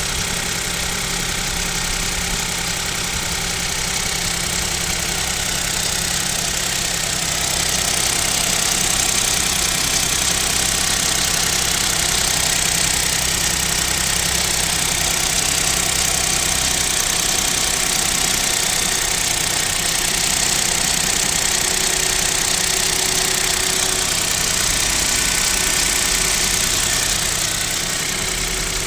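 Kia Picanto's 1.0-litre G3LA three-cylinder engine idling on a cold start at about −7 °C, with a knock that the owner takes for the piston group (piston slap) and fears means an engine overhaul is due.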